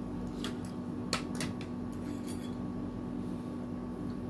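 Metal spoons and forks clinking several times against a ceramic soup bowl and plates, over a steady low hum.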